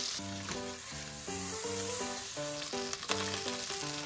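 Salted butter sizzling and foaming in a hot frying pan. Near the end the picture changes to shimeji and maitake mushrooms frying in it. Background music with a steady run of notes plays throughout.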